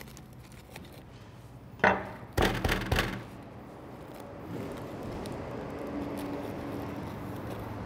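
Crisp crunching of a raw green cabbage's core being cut free and broken out of the head: one sharp crack about two seconds in, then a quick run of crunches, followed by quieter handling of the leaves.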